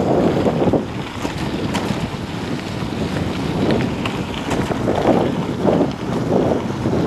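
Wind buffeting the microphone of a camera on a moving mountain bike, surging louder and softer, over the crunch of tyres on a gravel track, with scattered small clicks and rattles.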